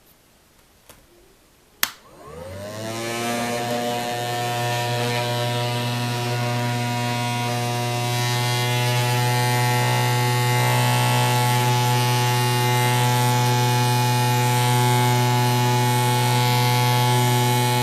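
Handheld car vacuum cleaner switched on with a click about two seconds in; its motor spins up and then runs with a steady, loud hum, droning 'like a tank'. The owner calls the unit defective: it is this loud yet leaves debris behind.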